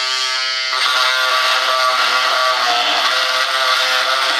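Handheld high-speed rotary tool running with a steady, high-pitched whine as its cutting blade works into the model jet's wing. The tone shifts under a second in as the blade takes load.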